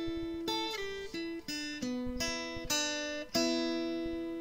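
Acoustic guitar music: single plucked notes, about eight of them, each ringing and fading before the next, with the last one held and dying away near the end.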